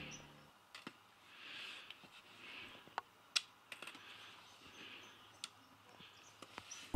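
Faint, irregular sharp clicks of trekking-pole tips striking the rocky trail steps, the loudest about halfway through.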